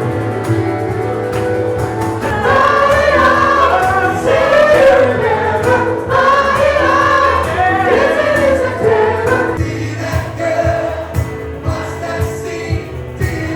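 Loud live bar music with many voices singing along together on long held notes; after about ten seconds the singing thins and sharp rhythmic beats come through.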